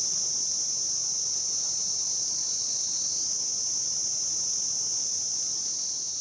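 Cicadas singing in one continuous, steady, high-pitched drone, easing slightly near the end.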